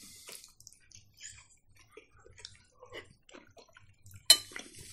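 Eating at the table: quiet chewing and small clicks, with one sharp click near the end.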